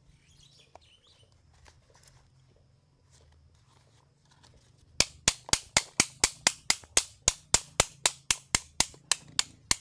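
A quick, even series of sharp clicks, about four a second, starting about halfway through.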